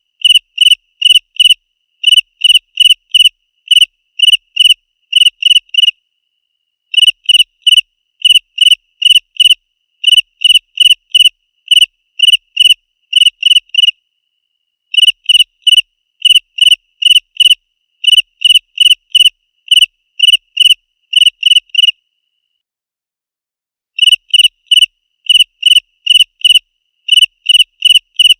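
Cricket chirping loudly: clear, high, shrill chirps, a few a second, in short runs, with the chirping stopping three times for a second or two.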